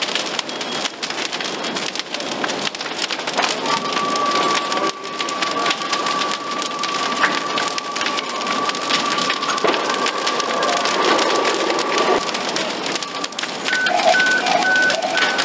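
Large structure fire burning through a wood-framed apartment building: a dense, steady crackling and popping of burning timber. A steady high tone sounds through the middle, and a run of short beeps comes near the end.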